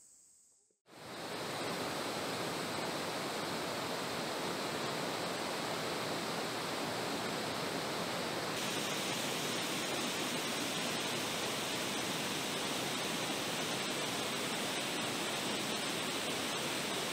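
Steady rush of flowing river water, fading in from silence about a second in. About halfway through it turns brighter and hissier: water spilling over a low weir.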